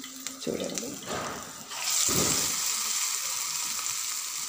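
Vada batter of urad dal and ground tamarind seeds slipped into hot oil in a small pan: about two seconds in the oil breaks into a loud, steady sizzle that keeps on.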